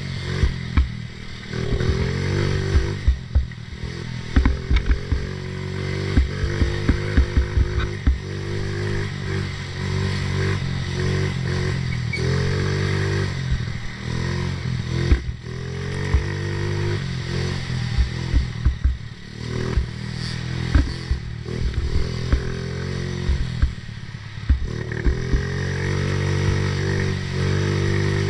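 A 50cc off-road racing engine revving up and falling off over and over as it is ridden hard, with clattering knocks from the machine bouncing over rough ground, thickest in the first few seconds.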